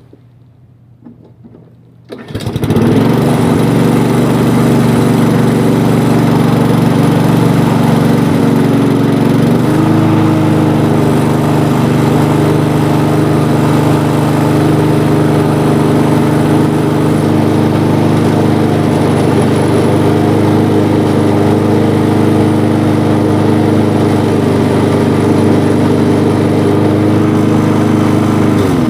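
Poulan Pro self-propelled lawn mower's engine pull-started cold, catching on the first pull about two seconds in and then running steadily. About ten seconds in, its note steps up slightly. It is shut off at the very end.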